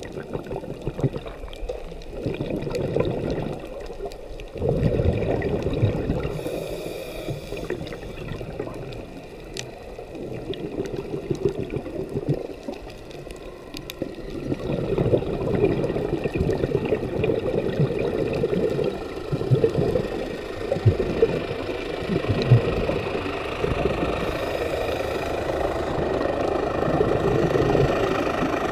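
Underwater sound through a camera housing: a scuba diver's exhaled bubbles rumbling and gurgling in surges several seconds long, with two short hisses of the regulator on an in-breath.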